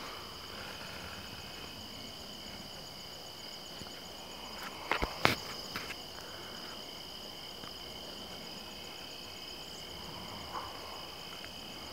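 Steady high-pitched trilling of crickets and other insects, held on two steady pitches, with a single sharp click about five seconds in.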